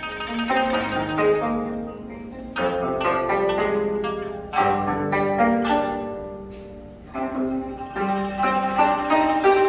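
Gayageum, geomungo and pipa playing together in a slow melody: plucked notes ringing and fading, with louder plucked chords about two and a half, four and a half and eight seconds in.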